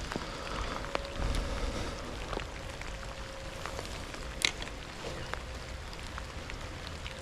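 Rain falling, with individual drops ticking irregularly and one louder, sharper tick about four and a half seconds in.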